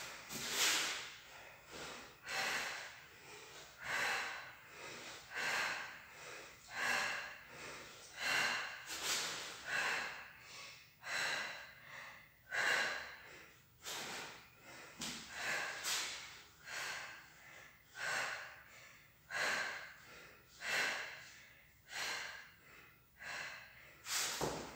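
A woman breathing hard and rhythmically while exerting herself in a bodyweight floor exercise, a breath about every second and a half.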